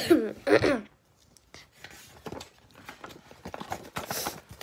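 A short burst of a child's voice with a falling pitch in the first second. Then a comic book's paper page is flipped rapidly back and forth, giving light irregular flaps and taps.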